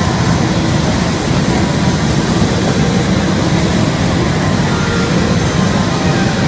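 Steady, loud roar of the electric air blower that keeps an inflatable climbing wall inflated, running without a break.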